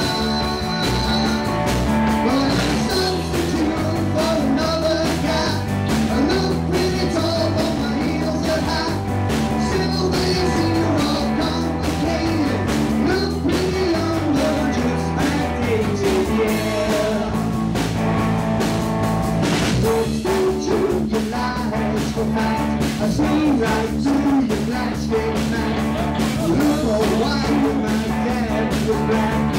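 Live rock band playing: a male singer over electric guitars, bass guitar and a drum kit.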